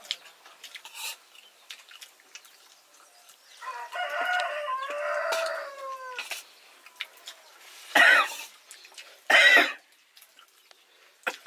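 A rooster crowing: one long call about two and a half seconds long, falling in pitch at the end. It is followed by two shorter, louder calls about a second and a half apart, and a third right at the end.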